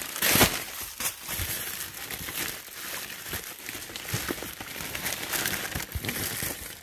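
Plastic packaging and boxes crinkling and rustling as items are dug out of a pallet, with scattered sharp clicks and knocks, the loudest about half a second in.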